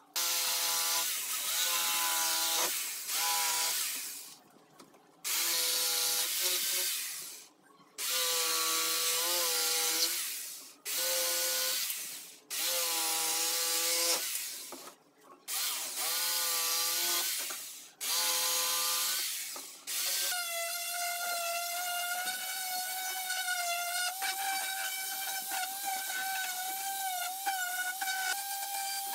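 Corded jigsaw making a series of short cuts through pine pallet slats, starting and stopping about eight times, its motor pitch dipping as the blade bites into the wood. From about twenty seconds in a steadier, higher motor sound runs on without a break: an electric random-orbit sander running.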